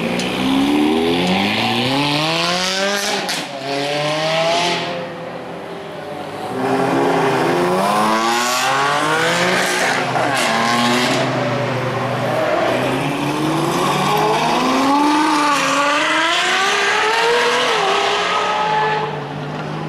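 Performance cars accelerating hard away one after another, their engines revving up with rising pitch and dropping at each gear change, several times over.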